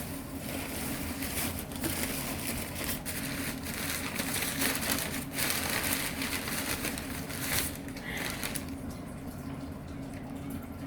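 Packing material being rustled and crinkled by hand while a parcel is unpacked: a run of crackling handling noise that dies down about eight and a half seconds in. A steady low hum runs underneath.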